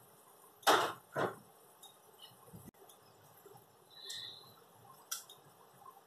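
Dried mixed herbs shaken out of a jar into the pot: two short shakes about half a second apart, about a second in, then only faint clicks.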